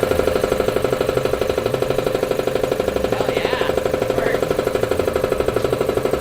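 Shop air compressor running under power on its newly fitted replacement electric motor, during its first test run after rewiring. The pump chugs in a fast, even pulse over a steady hum.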